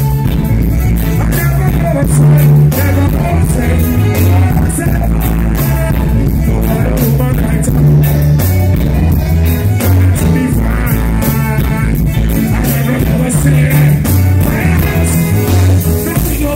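Live reggae band playing loud, with a heavy bass line moving in steps under regular drum hits, and a male singer's voice over the band.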